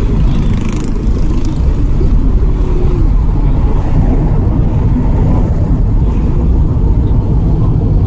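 Car driving along a road at a steady pace, heard from inside the cabin: a steady low rumble of road and engine noise.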